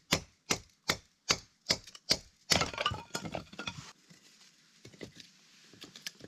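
Splitting pine kindling by batoning: a piece of wood strikes the blade sharply about two and a half times a second, driving it down through an upright stick. Halfway through, the wood splits with a burst of cracking and clattering pieces, followed by faint knocks of split sticks being stacked.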